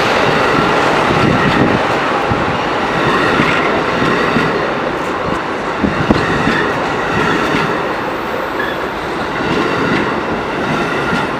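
Passenger train cars rolling past close alongside the platform: a steady loud rumble of wheels on rail, with scattered clacks.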